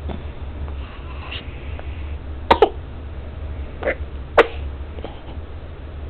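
A newborn baby making about five short, sharp little sounds, irregularly spaced, two of them in quick succession. A low steady hum runs underneath.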